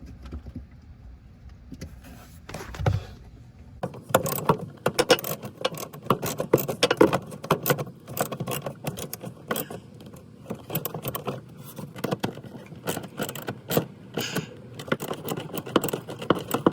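Hand work on a car's fog light fitting: one dull thump, then a long irregular run of clicking, rattling and scraping as plastic parts and screws are handled and the light is worked into place.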